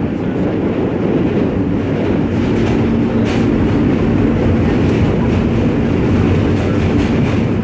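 New York City subway train running: a loud, steady low rumble, with a steady hum joining about two seconds in and a few faint clicks.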